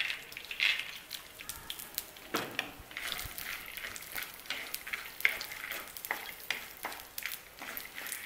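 Raw peanuts frying in hot ghee in an earthenware pan, with a steady sizzle. Scattered clicks and scrapes come from the nuts knocking about as a wooden spatula stirs them against the clay.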